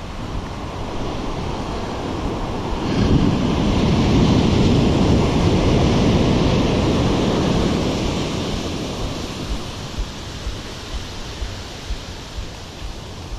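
Ocean surf breaking on a sandy beach: a wave crashes about three seconds in and its noise swells for several seconds, then slowly fades as the water washes up the sand. Wind rumbles on the microphone underneath.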